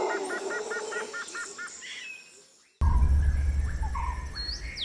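A rapid run of repeated chirping notes fades out over the first two and a half seconds. After a sudden cut, forest birds call: short chirps and a few sharp, high whistled downward sweeps over a steady low rumble.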